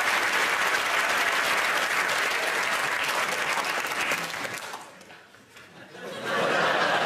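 Studio audience applauding. The clapping dies away about five seconds in, and after roughly a second of near quiet it starts up again at full strength.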